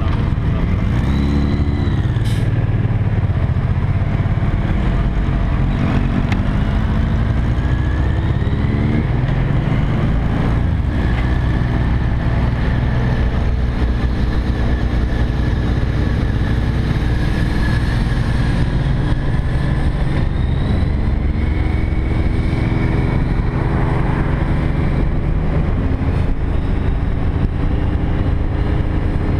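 Motorcycle engine pulling away and accelerating, its pitch rising and dropping back several times as it shifts up through the gears, over a steady low exhaust rumble.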